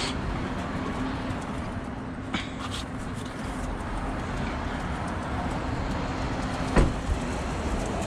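Steady low rumble of outdoor background noise with a few light knocks, and a sharper thump about seven seconds in.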